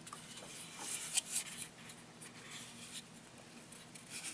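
Hands handling a SCCY CPX-2T pistol: faint rubbing of skin on the polymer frame and steel slide, with a few short scrapes about a second in.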